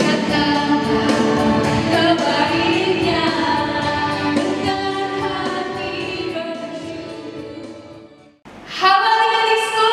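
Recorded church music with a choir singing, fading out near the end; after a brief break, another held sung passage begins.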